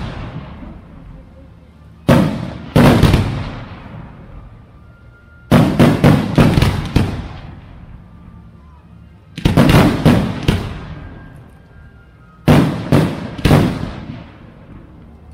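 Aerial fireworks shells bursting overhead in clusters of two to four loud bangs, each cluster echoing away, with a new group every three to four seconds.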